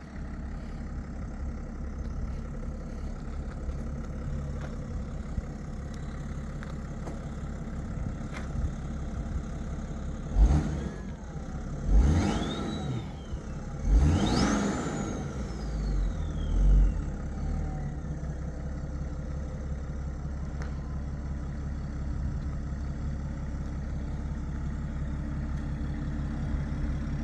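BMW 535d twin-turbo straight-six diesel idling, then blipped three times about midway and once more lightly. Each blip is followed by a high turbo whistle that rises and then falls away as the revs drop, the last whistle the highest and longest.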